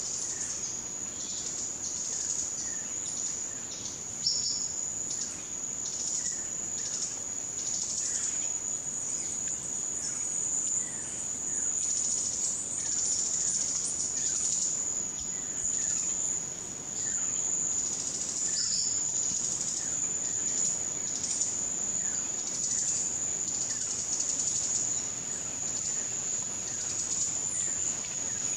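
A steady, high-pitched insect drone on one unbroken tone, with faint short downslurred bird calls here and there.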